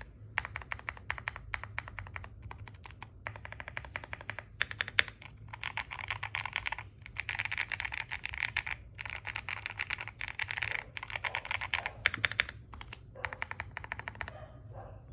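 Typing on a QK80 mechanical keyboard with a POM plate, G-Square White Warrior V2 switches and Cherry keycaps. The keystrokes come in quick runs of clicks with short pauses between them, fastest and densest in the middle.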